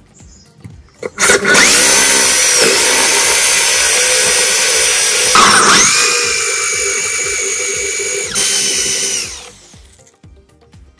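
An electric power tool runs at high speed with a whining tone from about a second in. Its pitch dips briefly twice as it comes under load, and it stops shortly before the end.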